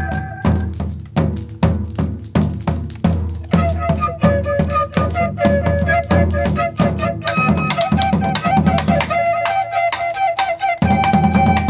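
Live flute and drum kit playing together: the flute holds long notes and short runs over a steady beat of bass drum, snare and cymbals. The flute drops out for a couple of seconds about a second in, leaving the drums alone, then comes back in.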